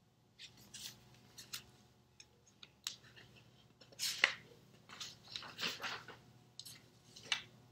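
Sheets of paper rustling and shuffling while the clipboard's pages are swapped, with a few sharper snaps about four seconds in and again near the end.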